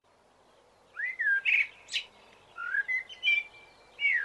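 A songbird singing several short phrases of swooping whistled notes mixed with quick trills.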